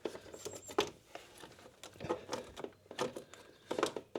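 Irregular clicks and knocks from a motorcycle's clipped-on trim panel being wiggled and tugged by hand, the panel not yet coming free.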